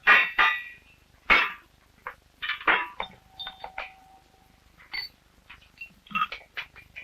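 Irregular knocks and clinks of a cooper's hand tools on a wooden barrel, with one short ringing note about three seconds in.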